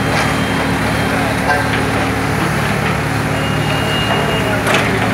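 An engine running steadily with a constant low hum, with a few faint clicks over it.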